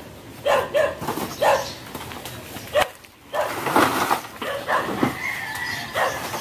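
Rooster crowing, with one long held note about five seconds in, among several shorter bursts of sound.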